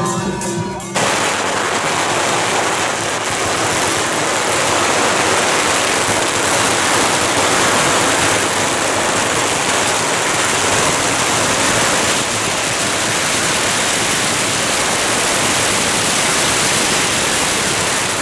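A long string of firecrackers going off in a dense, unbroken crackle, starting about a second in after a short bit of music.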